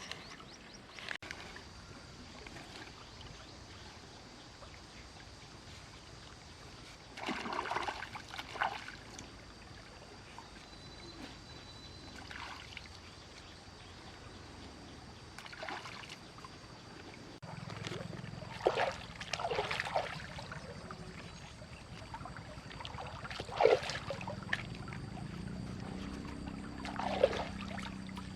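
Water splashing and sloshing in a series of separate short splashes over a steady watery background. A low hum comes in about two-thirds of the way through and stays to the end.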